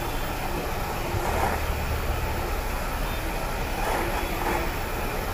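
Jeweller's soldering torch flame blowing steadily, a constant rushing hiss with a low rumble underneath, as silver is heated enough to melt the solder.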